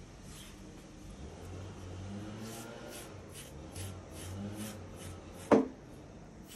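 Medium carding knife raking through a cocker spaniel's coat in short scratchy strokes, about three a second, pulling out the dead undercoat. A single sharp knock about five and a half seconds in.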